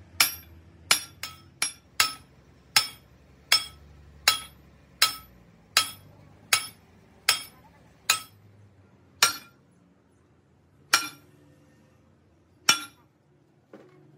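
Hammer blows on a steel part, each strike ringing with a clear metallic tone: a steady run of strikes about one every three-quarters of a second, slowing to a few widely spaced blows near the end.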